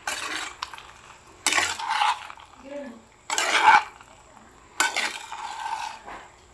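Spatula stirring and tossing pasta in a pan, four scraping strokes about a second and a half apart.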